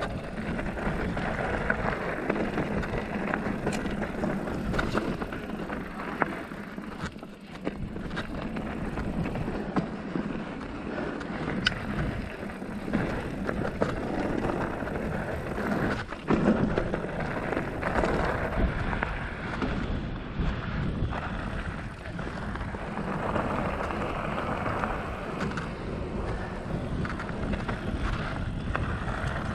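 Felt Decree 3 mountain bike ridden over a dry dirt and loose-rock trail: steady tyre noise on the dirt, with many sharp knocks and rattles as the bike goes over rocks and bumps.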